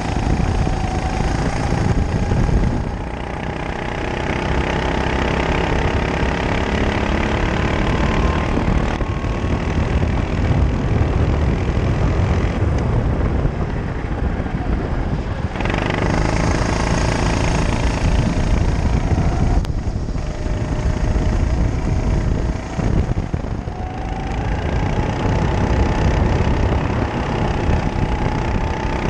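Honda single-cylinder four-stroke kart engine heard on board, its pitch dropping about three seconds in as the driver lifts for a corner and climbing again on the straights around the middle and near the end. A heavy rumble of wind on the microphone runs under it.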